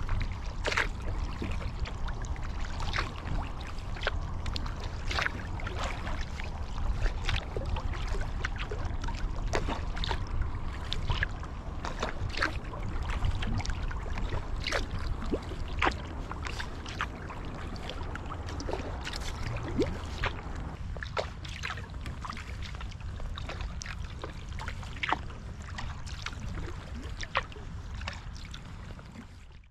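Kayak paddling: water splashing and dripping off the carbon paddle blades in many small, irregular drips, with water swishing along the hull over a steady low rumble.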